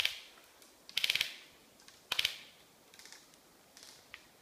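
Airsoft electric rifle firing three short bursts of rapid clicking shots, about a second apart, followed by a few fainter clicks.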